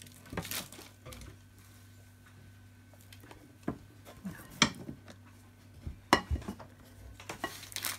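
Wooden spoon scraping brown bread dough out of a ceramic mixing bowl into a metal loaf tin, with a few sharp knocks of spoon, bowl and tin, the loudest about four and a half and six seconds in.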